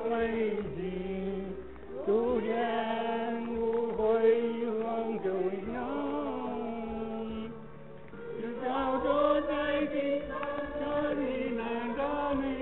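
Slow, chant-like singing: voices holding long, wavering notes and sliding between pitches, with a brief softer passage partway through.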